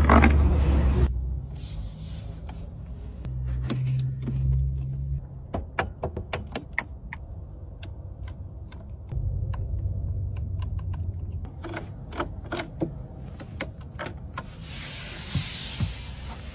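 A car's switches and fittings being worked: a run of sharp clicks, with short stretches of low electric-motor hum, like power windows moving, and a brief hiss near the end.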